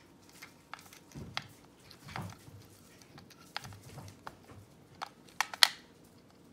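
AA batteries clicking and rattling against each other as they are pressed into the plastic battery compartment of a toy radio-control transmitter, with irregular small clicks and the loudest snaps about five and a half seconds in.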